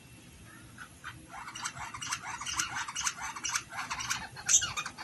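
Bird calls: after a quiet first second, a rapid, dense run of short chirps and squawks.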